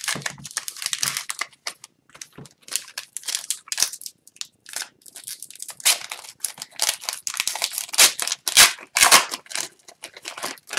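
A stack of Upper Deck hockey trading cards handled and shuffled through by hand: a run of short, crisp rustles, slides and snaps as cards are pulled from the back to the front, with short pauses between.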